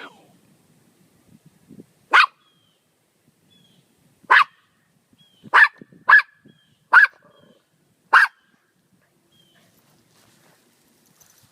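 A dog barking in six sharp single barks, spaced irregularly over about six seconds, two of them close together. It is riled up by a hissing cat.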